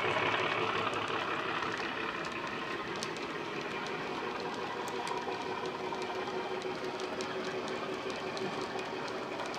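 Bachmann OO-gauge Class 37 model's sound decoder playing a steady diesel engine sound through its speaker, easing slightly in the first couple of seconds as the locomotive draws away, with the model wagons' wheels clicking lightly over the rail joints.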